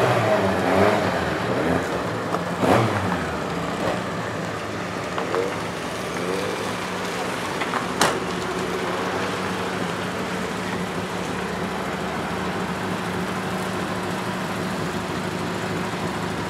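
A car engine running steadily at idle, with sharp knocks about three and eight seconds in.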